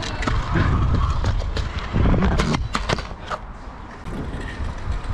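Stunt scooter wheels rolling over concrete, with a constant low rumble broken by several sharp clacks and knocks, clustered about two to three seconds in.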